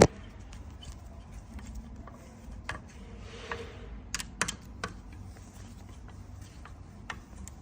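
A sharp click, then scattered light clicks and taps of tools and metal parts as the disc brake caliper bolts are tightened with the brake held clamped.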